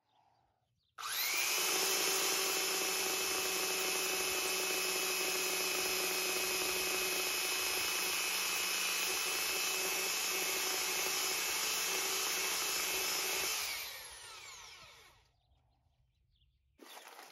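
Electric narrow-belt power file sander switched on about a second in, running steadily for around twelve seconds while bevelling the edge of a blister repair in a fibreglass hull, then switched off and spinning down with falling pitch.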